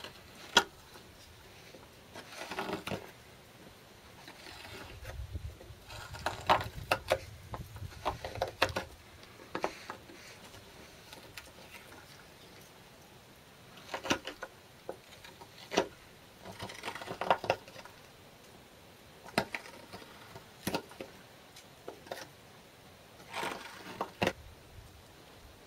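Mora hook knife carving out the bowl of a spruce spoon: short scraping cuts into the soft wood, coming in irregular clusters with pauses between strokes.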